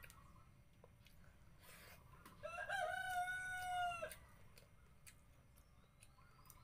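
A rooster crowing once: one long call of about a second and a half, with a few faint clicks of eating around it.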